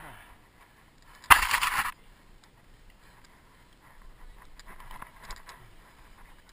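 A sudden loud rush of rustling noise just over a second in, lasting about half a second, over faint outdoor background.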